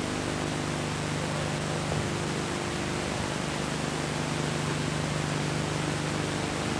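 Steady hiss with a low, even hum underneath, the background noise of an old camcorder tape recording; no distinct event stands out.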